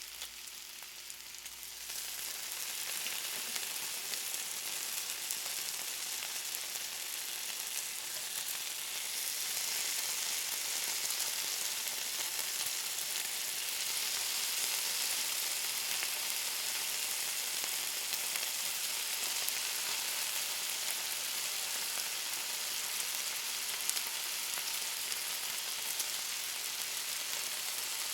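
Bacon sizzling, a dense steady hiss with scattered small pops, getting louder about two seconds in and again around ten seconds in.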